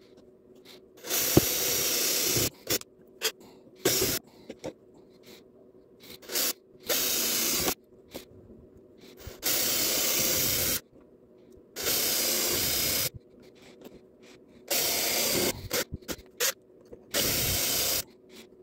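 Cordless drill boring holes through a thin aluminium strip backed by wood. It runs in short bursts of about a second each, six or seven times, with a hissing cut over the motor's hum.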